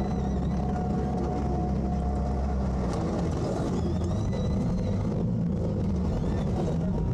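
Twin outboard motors running steadily at low speed in gear, an even low drone.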